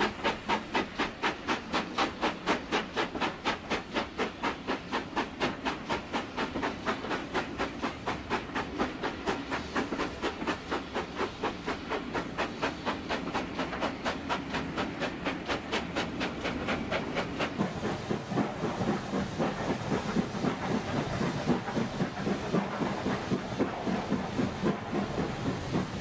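Steam locomotive chuffing steadily at about three to four beats a second, each beat a hiss of exhaust steam, with a running rumble beneath.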